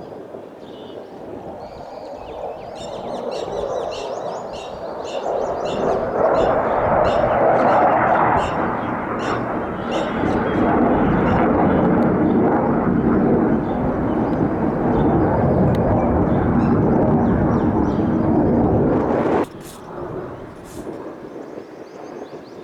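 Military fighter jet flying low overhead, its engine roar building over the first six seconds and staying loud for about thirteen seconds before cutting off abruptly near the end. Short, high bird chirps sound over it in the first half.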